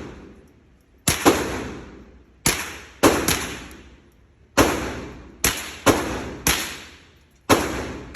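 About ten single shots from a .22 fired at an uneven pace, some in quick pairs and some a second or more apart. Each is a sharp crack trailing off in a short echo.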